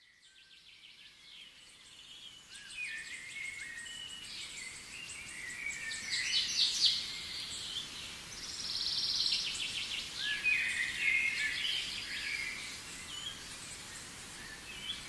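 Several birds chirping and singing, with short calls, sweeps and quick trills, over a faint outdoor hiss. The sound fades in over the first couple of seconds.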